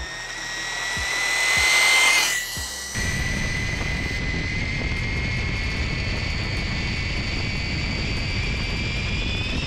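High-pitched electric motor whine of a 3D-printed RC car at full throttle. The whine climbs in pitch to a loud rushing peak about two seconds in as the car passes. From about three seconds it holds as a steady high whine over a low rushing noise, and its pitch climbs again near the end.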